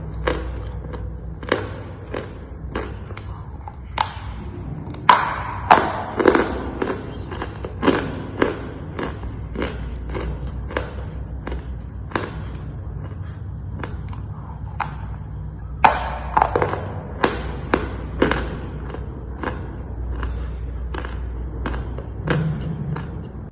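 Dry chalk being bitten and chewed: an irregular run of sharp, dry crunches, one to three a second, over a steady low hum.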